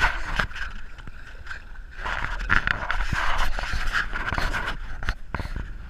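Kayak being paddled across open water: paddle strokes washing in the water, with scattered knocks and scrapes and a louder stretch of strokes through the middle.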